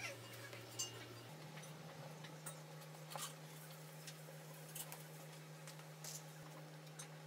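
Faint scattered clicks and light taps of particleboard furniture panels and wooden dowels being handled and set together, over a steady low hum.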